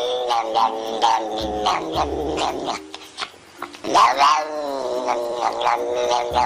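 Tortoiseshell domestic cat yowling in long, drawn-out, wavering cries that sound almost like words, with a short break about three seconds in.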